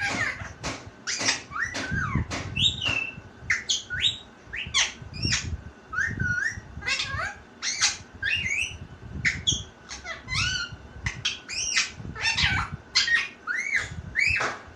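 Pet talking parrot chattering and calling: a quick run of short squawks and whistled notes, several a second, each sliding sharply up or down in pitch.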